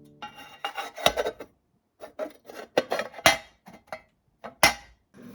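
Kitchen utensils scraping and knocking on cookware or a board: a series of short rasping strokes with a few sharp clicks between pauses.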